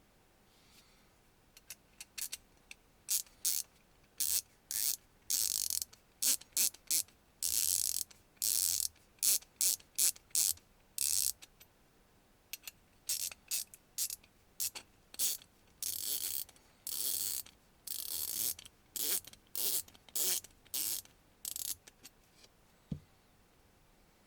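KABO-Tools combination ratcheting box wrench being swung back and forth, its ratchet mechanism clicking in repeated quick bursts of fine, high ticks. Some bursts are brief and some last about a second, with short pauses between them.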